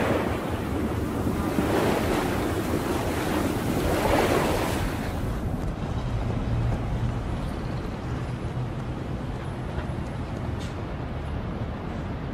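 Water washing in waves, the rush swelling and fading about every two seconds; after about six seconds it gives way to a quieter background with a low steady hum and a few faint ticks.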